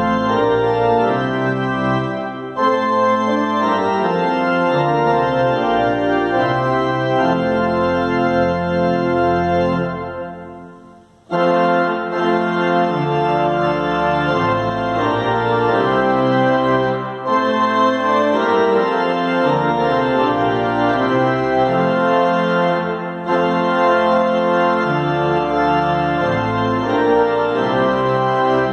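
Pipe organ playing a hymn in full, held chords that change every second or so over a moving bass. About ten seconds in, the sound dies away between phrases, and the next phrase comes in sharply a second later.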